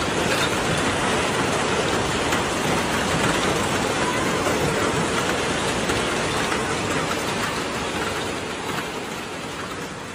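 Hailstones pelting down on hard surfaces in a dense, steady patter, which fades away over the last couple of seconds.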